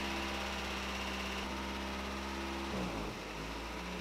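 Toyota 22RE 2.4-litre four-cylinder engine idling with a bouncing, surging idle: the engine speed dips briefly near three seconds in and then picks back up. The owner takes this for a faulty idle air control valve.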